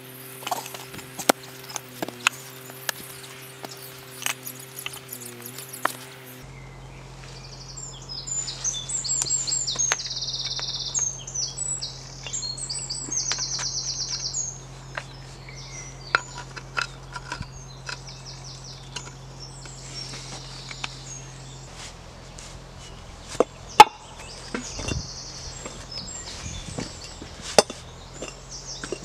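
Flat stones knocking and scraping against each other as slabs are set into a firepit, in scattered sharp clacks with one loud knock near the end. Birds sing in repeated chirping trills from about seven seconds in; before that a steady low hum with a few held tones.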